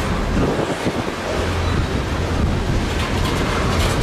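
Freight train's covered hopper cars rolling past, a steady rumble of steel wheels on rail with wind buffeting the microphone.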